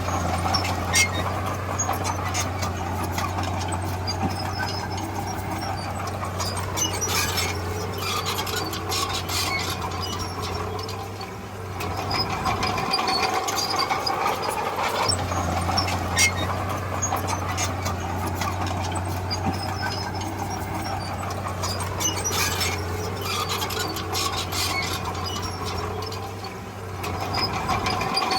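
Komatsu D31P crawler bulldozer working: the diesel engine runs with a steady low hum while the tracks squeal and clank. The sound eases off briefly twice, about fourteen seconds apart, as the machine changes direction.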